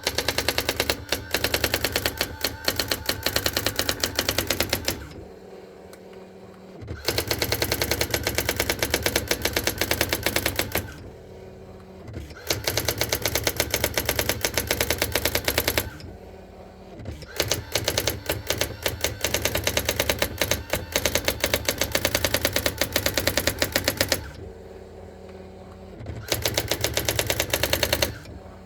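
Brother AX-400 electronic daisy-wheel typewriter typing its built-in demonstration text by itself: a fast, even run of printing strikes, stopping for a second or two every few seconds.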